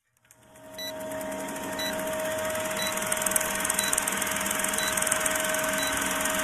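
Film projector sound effect: a steady mechanical whir and hiss with a constant hum, fading in over the first second, with a faint tick about once a second as the countdown runs.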